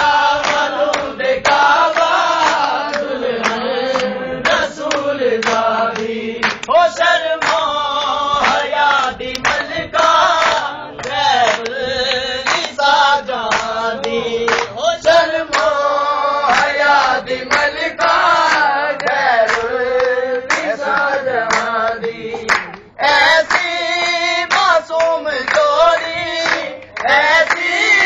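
Men's voices chanting a Punjabi devotional qasida together in melodic phrases, with repeated hand-clapping.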